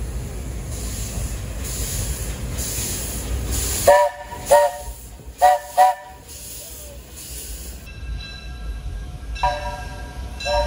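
1907 Baldwin steam locomotive running with a steady chuffing hiss, then sounding its steam whistle in four short blasts, two pairs, about four seconds in. Ringing chord-like tones start again near the end.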